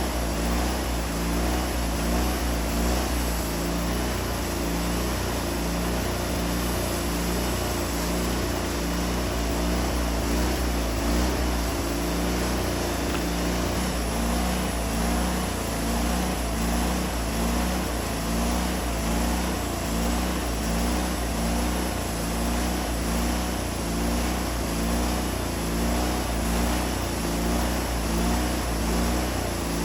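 Wood-Mizer LT40 band sawmill running steadily under load, its engine working and the band blade cutting through an Osage orange log, with a faint wavering whine over the engine.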